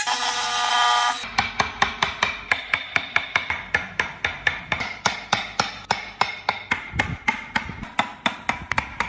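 Hand hammer striking steadily, about four sharp blows a second, with a faint ringing between blows, during wood carving.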